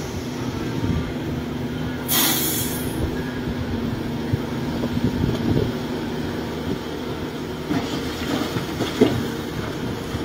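Caterpillar 336 hydraulic excavator working: its diesel engine runs under load with a steady drone while it digs, with a short hiss about two seconds in and scattered knocks and scrapes of the bucket in the dirt.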